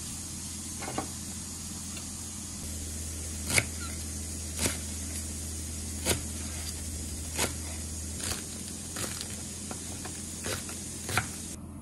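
Cleaver chopping spring onions and cilantro on a wooden chopping block: single sharp knocks of the blade on the board, roughly one a second, over a steady low hum.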